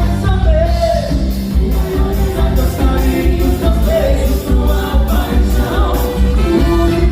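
A band playing a pop song with a vocal line over a steady, heavy bass and drum beat.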